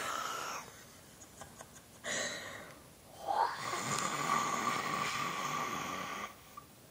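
A person's voice making playful monster noises: a short one about two seconds in, then one long drawn-out one held for about three seconds at a steady pitch.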